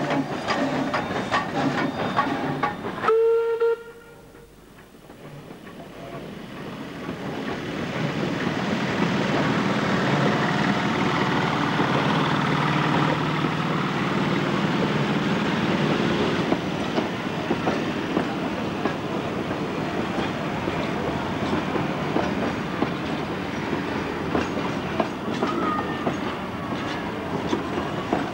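Queensland Railways C17-class steam locomotive 974 on the move, with a short whistle toot about three seconds in. After a sudden drop, its train of wooden carriages rolls past, wheels clicking over the rail joints, growing louder and then staying steady.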